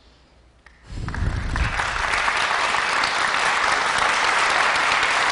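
Audience applauding. It starts suddenly about a second in and holds steady.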